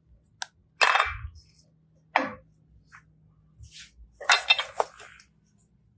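Slime being handled and pressed, giving short crackling, popping bursts: a loud one about a second in, a smaller one about two seconds in, and a quick cluster a little past four seconds.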